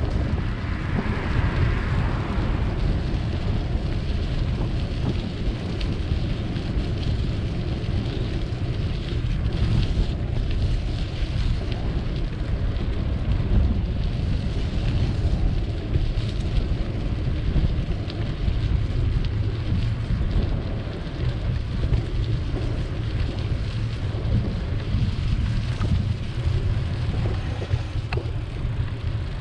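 Wind buffeting the microphone of a camera on a moving bicycle: a steady low rumble with a rain-like hiss over it.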